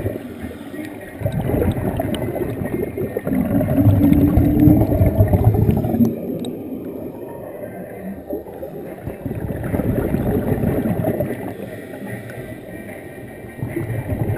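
Scuba exhaust bubbles from a diver's regulator gurgling and rumbling underwater in three surges, one with each exhalation. The first surge is the longest and loudest, with quieter gaps for each inhalation in between.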